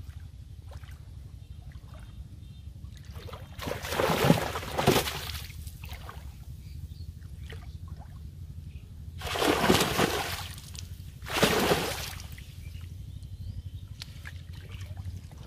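Water splashing and sloshing in three loud bursts: one around four seconds in, a longer one near the middle and a shorter one soon after. Trickling sounds and a steady low hum lie beneath.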